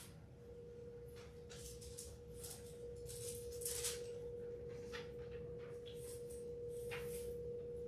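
A faint, steady mid-pitched tone runs without a break, with soft short hissing rustles over it now and then.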